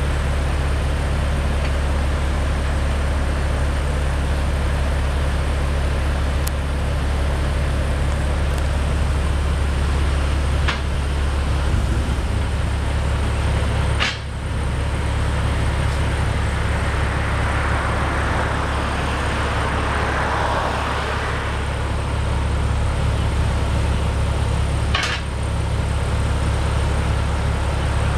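Car-transporter truck's engine idling: a steady low drone, with a few short sharp clicks.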